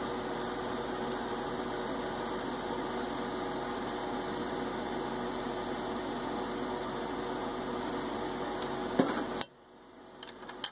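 A small electric motor runs with a steady hum carrying a few fixed tones, then cuts off abruptly about nine and a half seconds in. A few light metal clicks follow.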